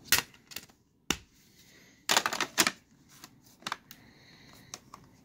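Hard plastic parts of a Dyson DC33 upright vacuum being handled, with the motor off: sharp clicks and clatters, a cluster of them about two seconds in and a few lighter taps later.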